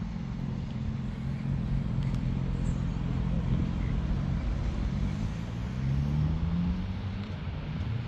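Road traffic passing: car engines running, with one vehicle's engine rising in pitch as it accelerates about five seconds in.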